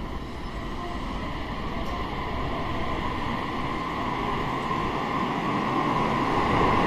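Limited express electric train pulling out of an underground platform, growing steadily louder as it gathers speed, with a steady motor whine that strengthens toward the end.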